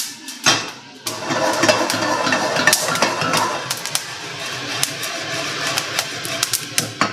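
Coffee beans rattling and sliding as they are tossed in a frying pan, with many sharp pops of the beans cracking. The cracking is the sign that the roast is nearly done.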